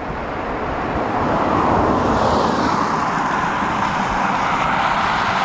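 Engine noise of a passing vehicle: a loud rushing drone that swells about a second in and holds steady.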